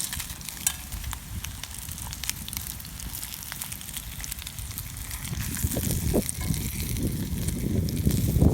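Crackling and sizzling from campfire cooking: many small sharp pops over a steady hiss. From about five seconds in, a low gusty rumble of wind on the microphone grows louder.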